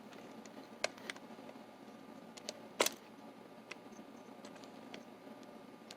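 Small metal parts of a Dorma mortise lock clicking and tapping as the latch bolt assembly is fitted into the lock case: a few scattered light clicks, the sharpest just before three seconds in.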